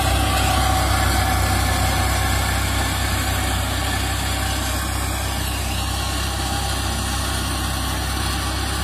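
Eicher 557 tractor's diesel engine running under load, driving a rear-mounted mulcher that is shredding rice straw. The steady low engine drone and the mulcher's broad whirring noise fade gradually as the tractor pulls away.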